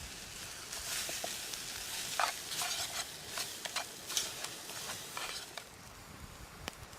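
Food sizzling in a pan over a campfire while being stirred, with a run of irregular scraping strokes in the middle, then a few sharp crackles as it settles.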